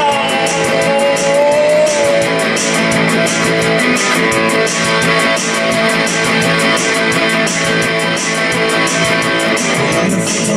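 Electric guitar playing an instrumental passage of a song, strummed in a steady, even rhythm, with a long held note in the first couple of seconds.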